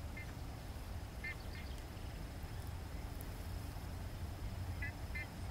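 Faint, steady low rumble of distant diesel freight locomotives approaching. A bird calls with short chirps over it, a few times.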